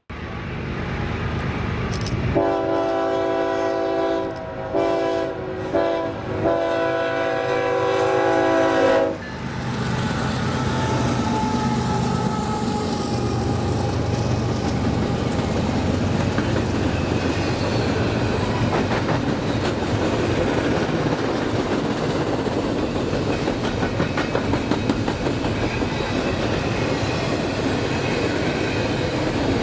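A BNSF freight locomotive's multi-note air horn sounds the grade-crossing signal, long, long, short, long. The train then rolls past with a steady rumble of locomotives and the clatter of wheels on rail.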